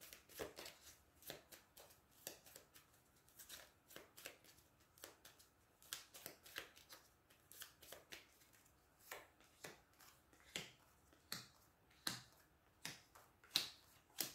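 A deck of cards shuffled by hand, overhand, as cards drop from one hand into the other: faint, irregular soft clicks and flicks.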